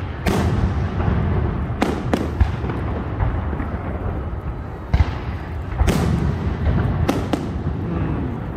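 Fireworks exploding in the sky: about seven sharp bangs at uneven intervals, several in close pairs, each with a short echo trailing after it, over a steady low rumble.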